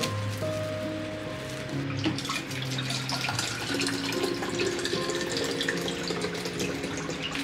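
Liquid poured from a jug into a glass bottle: a continuous splashing, trickling stream that starts about two seconds in. Background music plays underneath.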